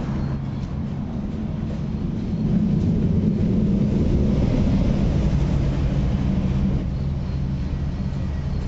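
Steady low rumble of road traffic, growing louder for a few seconds in the middle as a vehicle passes.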